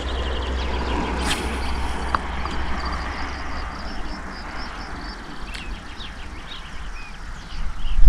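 Steady outdoor noise with a strong low rumble, and small birds chirping again and again over it. A loud knock comes near the end.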